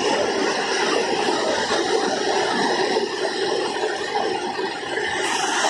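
A mountain river rushing, heard as a steady, even rush of water.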